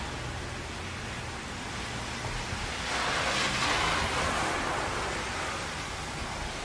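Steady traffic and rain noise from wet road: a constant hiss over a low rumble. About three seconds in, a louder wash of tyre spray swells and fades as a vehicle passes on the wet pavement.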